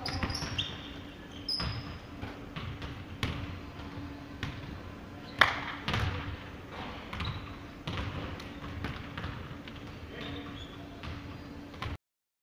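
Basketball bouncing and dribbling on a hardwood gym floor during play, with a few short sneaker squeaks in the first two seconds and one sharp, much louder bang about five seconds in, over a steady low hum. The sound cuts off abruptly near the end.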